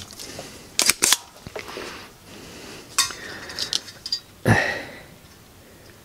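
Spring-loaded solder sucker (desoldering pump) being cocked and fired to suck solder off wire joints: several sharp clicks and snaps, the strongest a snap with a thump a little after four seconds in.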